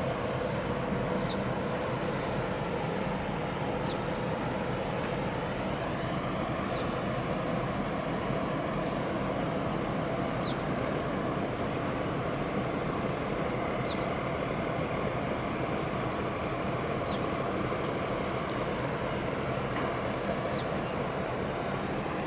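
Steady low drone of the diesel engines of a container ship and its escort harbour tug, with water churning in the tug's wake. Faint short high chirps come every two to three seconds.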